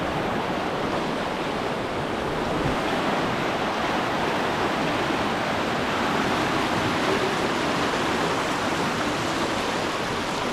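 Tumpak Sewu waterfall heard from its foot: a steady, even rush of falling water.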